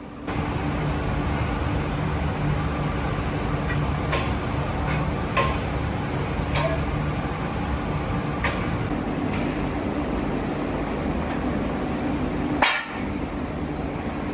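Metalworking factory machinery running with a steady hum and a held low tone, broken by a handful of sharp metallic knocks at irregular intervals; the loudest knock comes near the end.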